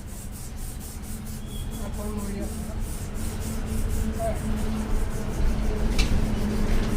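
Motorcycle parts being scrubbed clean by hand: steady rubbing, with a low hum underneath and one sharp click about six seconds in.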